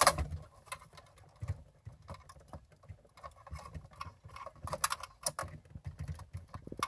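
Plastic wiring-harness connector clips on the back of a car radio clicking and rattling as fingers work at their release tabs. The clicks are small and irregular, with a loud click at the start and a cluster of sharper clicks about five seconds in.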